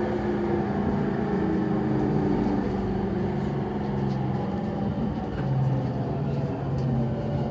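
Interior running sound of a JR East E231-series electric train car, the motor car MoHa E231-628. Steady droning tones from the drive gear area sit over the running noise, and one tone drifts slowly down in pitch as the train slows. Its abnormal groan on deceleration is blamed by the uploader on the gears.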